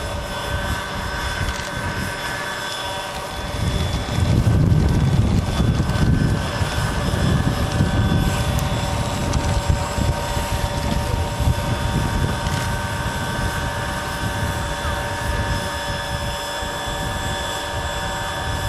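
Large-scale electric RC Bell 430 model helicopter hovering: a steady whine of several pitches from its electric drive over the rotor's whoosh. A low wind rumble on the microphone swells from about four seconds in and eases off later.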